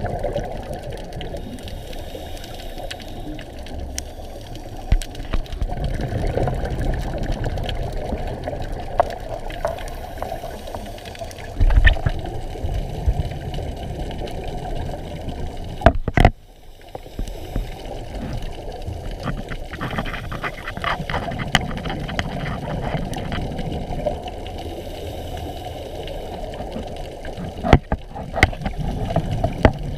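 Muffled underwater sound from a scuba dive: a steady low rushing noise with scattered sharp clicks and a few louder knocks. After one knock about halfway through, the sound briefly drops quieter.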